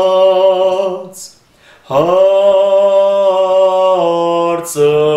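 A man's solo voice chanting an Armenian church hymn unaccompanied in long, slow held notes. The chant drops out briefly about a second in and resumes at about two seconds, and there is a quick breath near the end.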